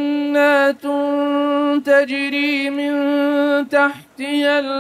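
A male reciter chanting the Quran in melodic tajweed style, holding long drawn-out vowels with small melodic turns, with short breaks and a brief pause for breath near the end.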